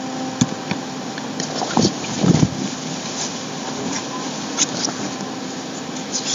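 Steady background hiss with a low hum, a few faint clicks and a brief low thump about two seconds in.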